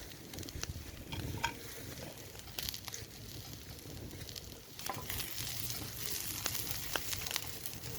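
Diced potato and onion sizzling and spitting in hot olive oil in a Petromax SP32 frying pan, a dense crackle of fine pops that grows fuller about five seconds in.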